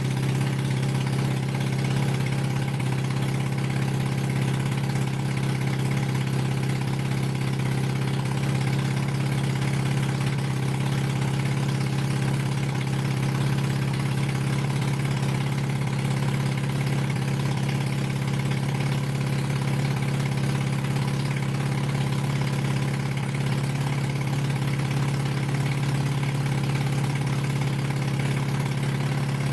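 Honda CB250-based parallel-twin engine idling steadily at an even pitch, running on old carburettors, temporary fuel and only half an exhaust, with no throttle or choke connected. It is running on both cylinders after being rebuilt from a parts-only non-runner.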